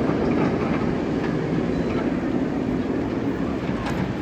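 Steady rolling rumble of a vehicle running along a track, with a few faint clicks.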